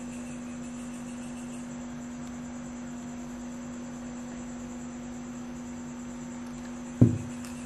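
Steady electrical hum with light hiss. About seven seconds in there is a single sharp, low thump.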